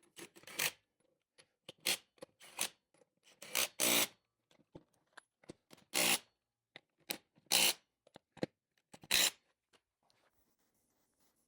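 Lug nuts being run down and tightened onto the wheel studs of a zero-turn mower's wheel, with a wrench rasping in about eight short bursts over the first nine seconds.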